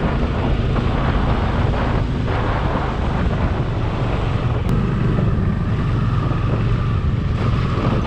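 Bajaj Dominar 400's single-cylinder engine running steadily at low road speed, with wind buffeting the action camera's microphone.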